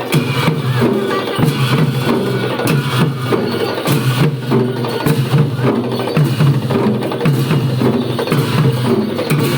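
Live traditional Newar drum ensemble playing for a Bhairab dance: fast, continuous drum strokes mixed with bright metallic clashes, with no pause.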